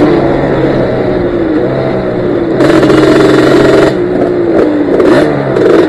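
ATV engine running close to the microphone on a dirt trail, its pitch rising and falling as the throttle is worked, with a louder burst of throttle about two and a half seconds in that lasts around a second.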